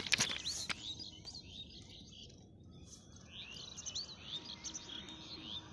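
Small birds chirping: many short, quick chirps, thickest in the second half. It opens with a few sharp crackles in the first second.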